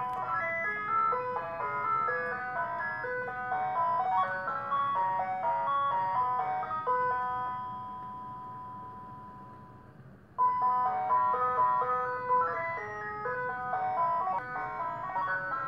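Ice cream truck's jingle playing: a tinkling melody of quick stepped notes that settles on a held note and fades, then starts over abruptly about ten seconds in.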